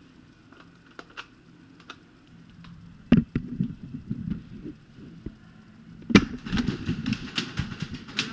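Airsoft gunfire during a game: scattered sharp pops, faint at first, then louder and closer together about three seconds in, and busiest from about six seconds in.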